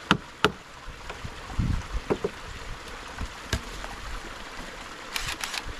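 Two sharp strikes on a chisel cut into a wooden waterwheel hub, closing a quick run of strikes. They are followed by a few lighter clicks and a dull thump as tools are handled.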